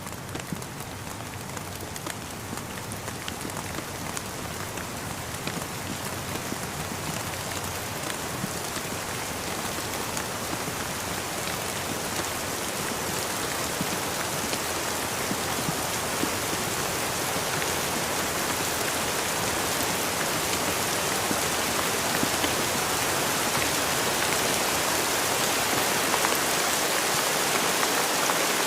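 Steady rain falling, with many small scattered drop taps, growing gradually louder through the stretch.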